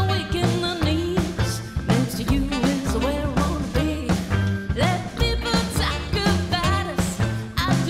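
Live band playing an upbeat rock-and-roll number: electric guitar, drum kit, upright bass and saxophone, with a steady beat and a woman singing.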